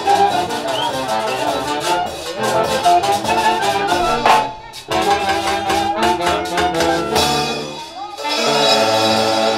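A festival orquesta plays horn-led music, with trumpets and other horns over a steady drum beat. It breaks off briefly about four seconds in and ends on a held chord.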